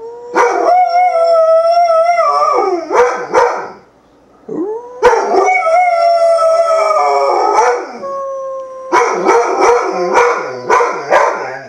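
Old English Sheepdog howling, set off by the weekly emergency broadcast system test: two long, wavering howls, each trailing off into short yelps, then a run of short yowling barks near the end.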